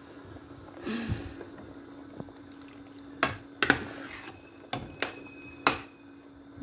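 Metal spoon clinking against a steel cooking pot while a simmering curry is stirred: several sharp knocks in the second half, over a steady low hum.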